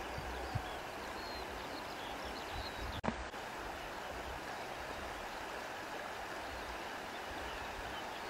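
Steady rushing of flowing water, with one sharp click about three seconds in.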